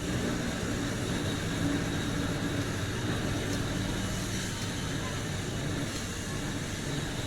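Electric arc welding: a steady hiss with a low hum underneath, running without a break.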